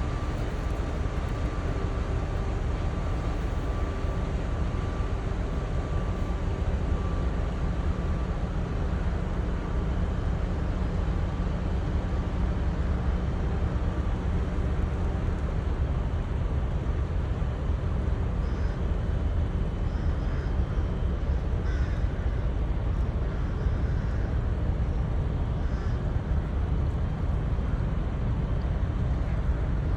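Steady low rumble of a cargo ship's engine on the canal, with faint humming tones over it in the first half. A few short bird calls come in during the second half.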